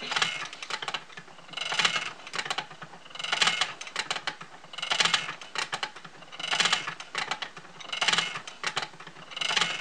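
Wooden treadle spinning wheel turning at a steady pace, with a rhythmic clicking clatter about once every second and a half as the wheel goes round.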